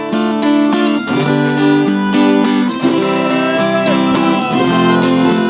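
Sertanejo band playing an instrumental passage led by plucked acoustic strings, with guitar notes and chords on a steady beat.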